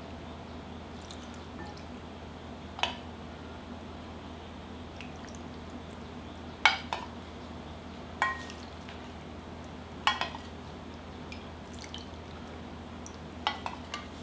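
A small ladle clinking against ceramic bowls as cold store-bought naengmyeon broth is scooped and poured over a bowl of noodles. There are about six sharp clinks a few seconds apart, with faint dripping and pouring of the broth.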